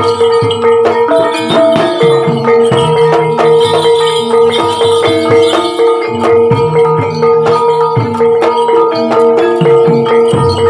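Javanese gamelan music playing steadily: tuned metal percussion struck in quick, even rhythm over held ringing tones, with drum strokes underneath.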